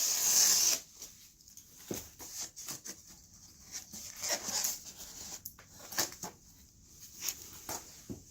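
Rustling of packaging and cardboard while a product is unpacked by hand: a loud crinkling rush in the first second, then scattered small rustles and clicks.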